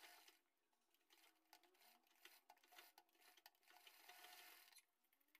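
Near silence: the sound track is all but muted.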